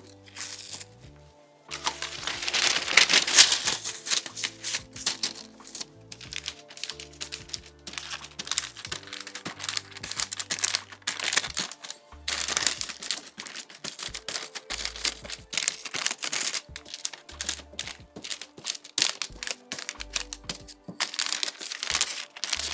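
Plastic wrap and parchment paper crinkling and rustling as tart dough is pressed and rolled flat with a wooden rolling pin, over background music. The crinkling is loudest between about two and four seconds in.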